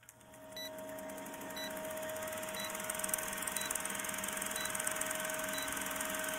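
Vintage film-countdown sound effect: a rapid, steady film-projector clatter with crackle, a steady hum, and a short high beep once a second.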